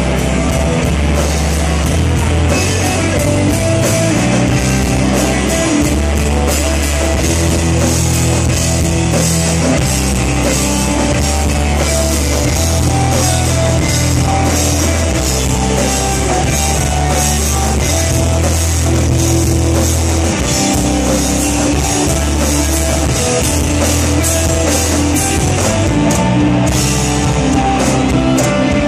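Live rock band playing loud and steady: electric guitars, bass guitar and drum kit with sustained bass notes and constant cymbals.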